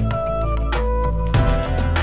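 Instrumental background music with a steady bass line and a regular beat.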